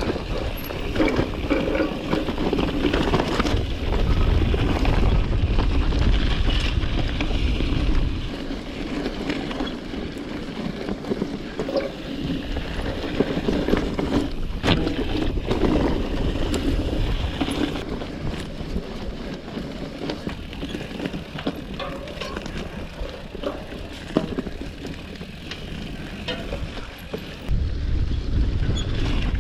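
Gravel bike riding over gravel and sand: steady tyre noise with scattered small clicks and rattles, and wind buffeting the microphone, heaviest in the first eight seconds and again near the end.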